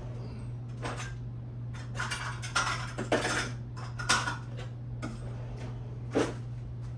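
Kitchen dishes and utensils clattering and clinking: a handful of separate knocks, busiest in the middle, with a last one near the end, over a steady low hum.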